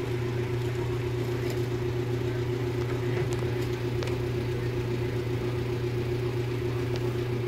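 Steady low machine hum that does not change, with a few faint ticks.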